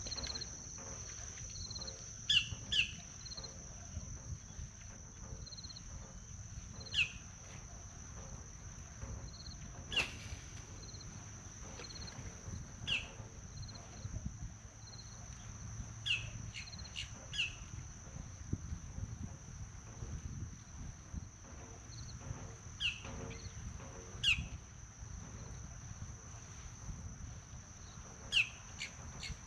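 Birds chirping: short, quick downward-sweeping calls every few seconds, often two close together. Under them run a steady high-pitched whine and a low wind rumble.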